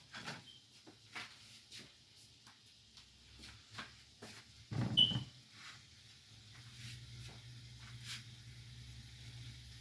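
Kitchen utensils and cookware being handled during cooking prep: scattered light clicks and knocks, with one heavier thump about five seconds in. A steady low hum sets in shortly after.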